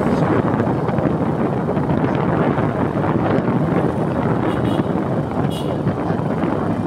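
Wind buffeting the microphone of a camera riding on a moving road vehicle, a loud, steady rushing noise with the vehicle's running and road noise mixed in beneath it.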